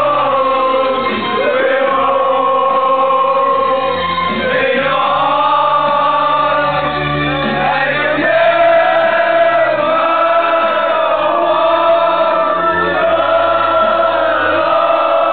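A group of men singing loudly together in chorus, a team's celebration sing-along with held, wavering notes, over a steady musical backing.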